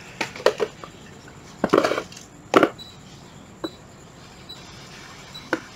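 Cordless power tools being handled and set down: a few separate knocks and clatters, the sharpest about two and a half seconds in.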